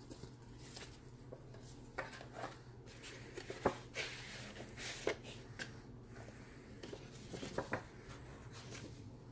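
Faint rustling and sliding of paper handouts and a manila folder being handled, with scattered soft taps and scrapes, the clearest about a third and half of the way in.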